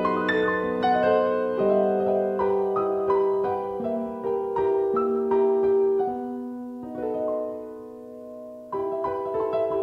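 Solo piano playing a slow, gentle piece of music. The notes die away to a soft held chord from about six seconds in, and a new chord is struck near the end.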